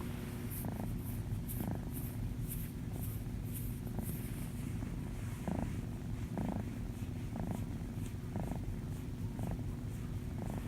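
A kitten purring steadily and rhythmically, the purr swelling and easing with its breaths about once a second.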